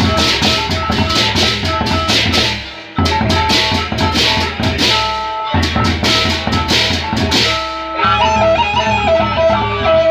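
Gendang beleq ensemble playing: large barrel drums beaten with sticks and clashing hand cymbals over steady pitched tones, with short breaks about 3 and 5.5 seconds in. About 8 seconds in the cymbals stop and a stepping melody carries on over the drums.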